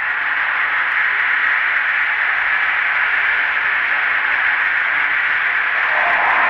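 Harsh noise music: a dense, steady wall of static-like hiss, strongest in the upper middle, slowly swelling in level. A lower band of noise comes in near the end.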